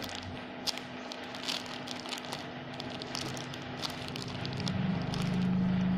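Plastic bag crinkling and crackling in short, scattered bursts as a bagged squishy toy is handled and squeezed. About five seconds in, a steady low hum swells up and becomes the loudest sound.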